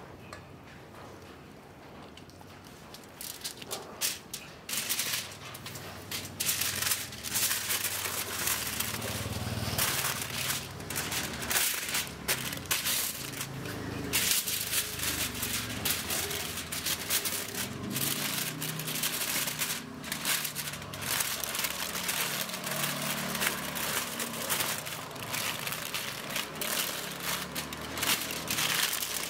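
Aluminium foil crinkling and crackling as it is folded by hand over food and crimped into a packet, starting about three seconds in and going on steadily with many small sharp crackles.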